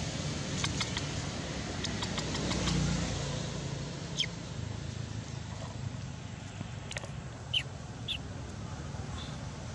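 Outdoor background noise with a distant vehicle's low engine hum that fades out about three seconds in. A few faint clicks come early, and later three short, high chirps fall in pitch.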